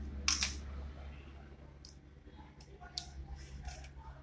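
Small metal parts of a disassembled Caterpillar C9 fuel injector clinking against a stainless steel parts tray as they are handled: a short clatter near the start, then a few lighter clicks, over a steady low hum.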